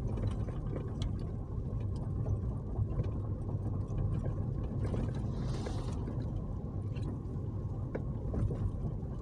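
Steady low rumble of a car's engine and tyres heard from inside the cabin while driving on a wet road. A brief hiss rises and fades a little past the middle as an oncoming van passes.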